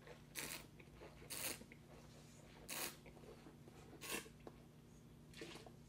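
A wine taster slurping a mouthful of red wine, drawing air through it to aerate it on the palate: five short, faint hissing slurps about a second apart.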